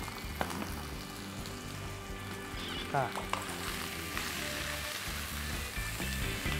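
Green curry chicken fried rice sizzling in a hot pan as it is worked with a spatula to be scooped out.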